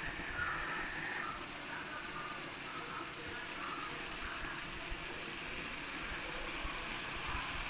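Vegetables frying in hot oil, a steady sizzle.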